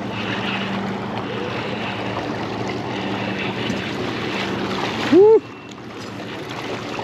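Steady wind and water noise over a faint low hum. About five seconds in comes a short, loud voice exclamation that rises and falls in pitch, and the noise drops right after it.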